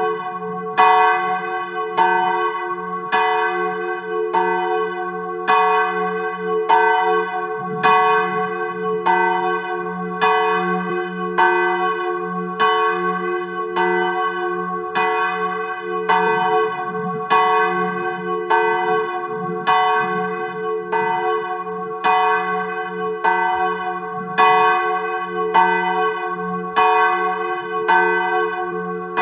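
The largest bell of a four-bell tower, tuned to G-flat, swinging a distesa. Its clapper strikes about every three quarters of a second, the strokes overlapping over a sustained low hum.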